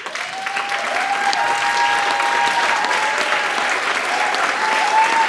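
Audience applauding, steady throughout. A held tone sits above the clapping and steps up and down in pitch a few times.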